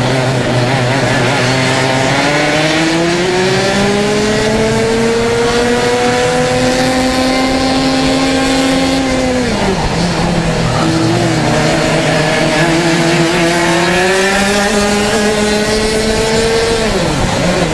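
Racing kart engine at full throttle, its pitch climbing steadily for about nine seconds, then dropping sharply off throttle about halfway through, before climbing again and dropping sharply once more near the end.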